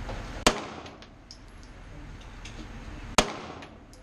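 Two shots from a Beretta 9 mm pistol, about two and a half seconds apart, each a sharp crack with a short echo off the walls of an indoor range.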